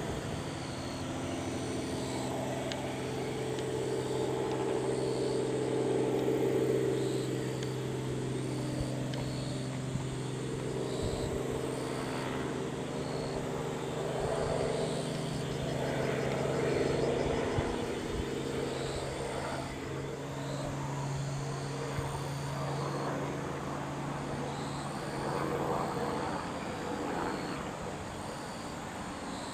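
Small two-bladed helicopter flying overhead: a steady engine and rotor drone that swells and fades a little as it moves across the sky.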